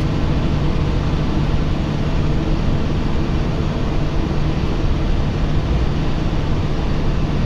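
Steady engine drone and road noise inside the cab of a moving truck, an even low hum under a constant rush.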